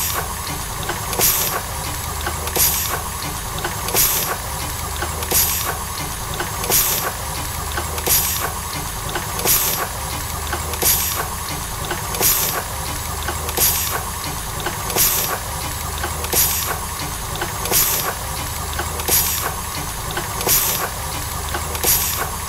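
Steam engine running slowly: a sharp hiss of exhaust steam about every second and a half, in an even rhythm, over a low steady hum.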